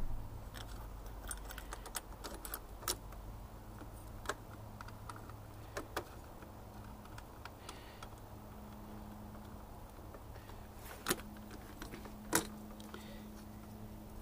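Scattered small metallic clicks and taps of hand tools, a nut driver and spanner, working the nut-and-bolt mounting of a finned motorcycle regulator/rectifier. A few louder knocks come through, one about three seconds in and two near the end.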